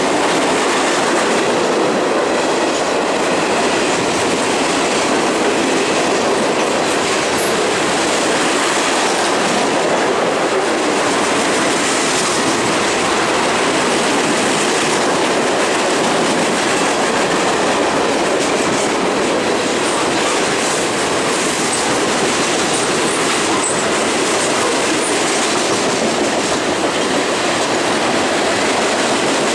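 CSX freight train cars (tank cars and hoppers) rolling past close below: a loud, steady noise of steel wheels on rail, with clickety-clack.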